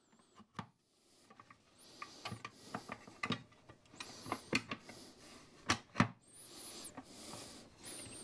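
Faint, irregular clicks and taps of hard plastic and metal parts being handled and pressed together by hand, as a portable compressor's housing and battery adapter plate are fitted back into place.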